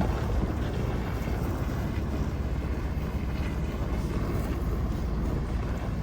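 A vehicle's engine running steadily while driving, heard as an even low rumble.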